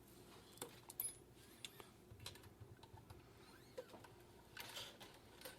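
Faint, scattered light clicks and small metallic taps of bass strings being handled and slid into the bridge while the bass is strung up.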